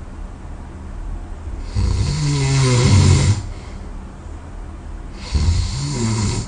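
A person snoring loudly in sleep: two long snores about three and a half seconds apart, each a low pitched drone with a breathy hiss over it.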